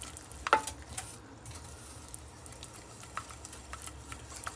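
Wooden spoon stirring a thick flour-and-olive-oil roux in a stainless steel pot: soft scraping with scattered light taps of the spoon against the pot, the sharpest about half a second in.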